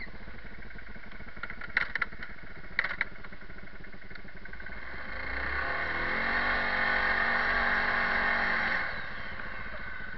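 Kawasaki 360 ATV engine running under way, revving up about halfway through and holding higher revs for a few seconds before easing off near the end. A few sharp knocks sound about two and three seconds in.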